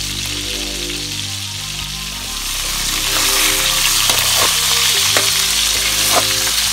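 Whole grouper (lapulapu) sizzling in hot oil in a wok, the frying growing louder about halfway through, with a few sharp pops in the second half.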